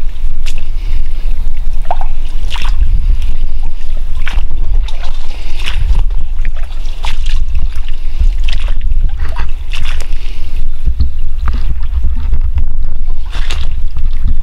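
Footsteps sloshing through shallow floodwater and wet leaf litter, a step about once a second, over a heavy rumble of wind buffeting the microphone.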